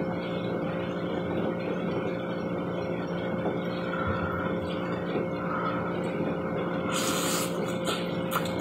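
Steady low background hum with one short slurp of noodles about seven seconds in.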